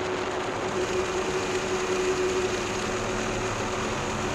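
Helicopter engine and rotor noise, a steady drone with a few faint held tones over a wide hiss.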